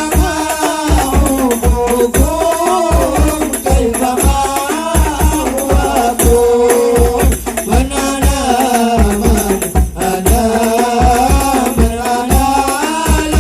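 Hadroh ensemble playing: rebana frame drums and bass drum beating a steady driving rhythm with jingling tambourine, under a sung devotional melody.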